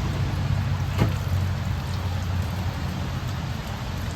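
Toilet refilling after a flush, water running steadily into the tank and bowl, with a single click about a second in.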